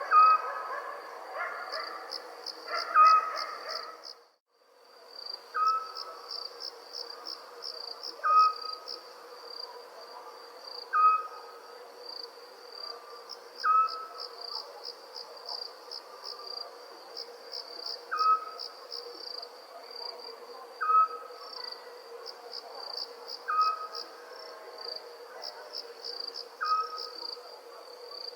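Night ambience of crickets chirping in fast pulsing trills, with a short call, owl-like in character, repeating about every two and a half seconds as the loudest sound. The sound cuts out for about half a second around four seconds in, then resumes.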